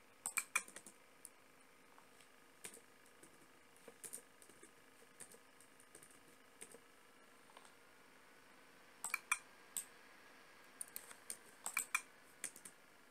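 Computer keyboard keystrokes, sparse and irregular: a few taps at the start, single taps through the middle, then quicker runs of taps about nine seconds in and again near the end.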